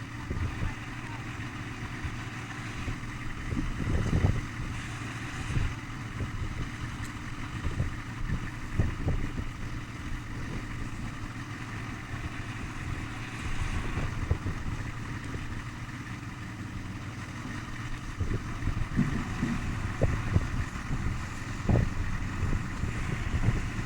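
Steady low rumble of a running vehicle, with wind on the microphone and scattered low thumps and knocks.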